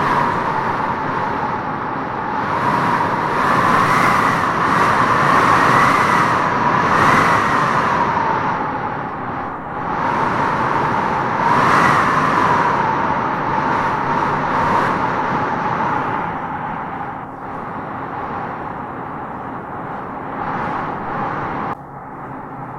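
Strong wind howling through trees in gusts, a steady rush with a whistling tone that rises and falls as each gust swells, strongest about four to eight seconds in and again around twelve seconds, then easing and dropping off suddenly near the end.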